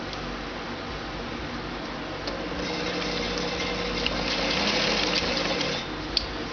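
Electric sewing machine running steadily for about three and a half seconds, stitching through fabric, starting about two seconds in and stopping shortly before the end. A single sharp click follows soon after it stops.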